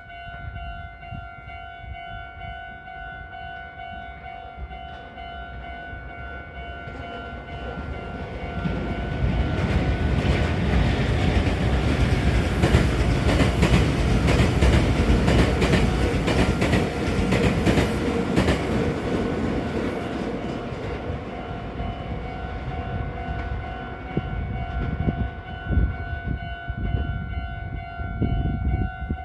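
Japanese level-crossing alarm ringing steadily while a Meitetsu electric train passes over the crossing. The train's rumble and the clack of its wheels over rail joints build from about a quarter of the way in, are loudest in the middle, then fade, with the alarm ringing on throughout.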